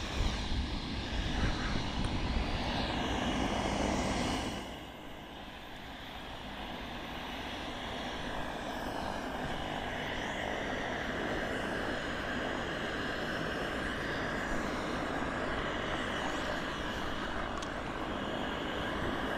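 Steady roar of an aircraft engine. A heavier low rumble in the first four seconds drops off suddenly, then the roar slowly builds again.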